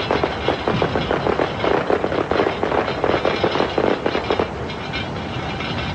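Popcorn popping in a lidded saucepan: a rapid, dense run of pops that thins out about four and a half seconds in.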